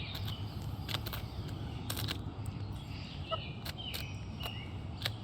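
Pet chickens making two short, high calls about three and four seconds in, over scattered sharp taps and a steady low hum.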